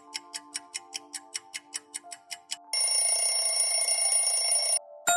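Quiz countdown-timer sound effect: a clock ticking about five times a second over soft background music, then an alarm bell ringing for about two seconds that cuts off suddenly. A bright chime sounds at the very end.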